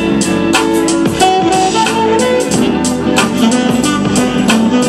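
Instrumental dance music with a steady drum beat and sustained melody notes.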